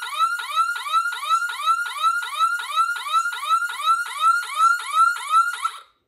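A 5-inch, 12-volt, 115 dB horn alarm siren sounding its cycling tone: a rapid repeating whoop, each a quick rise and fall in pitch, about three a second. It cuts off abruptly just before the end.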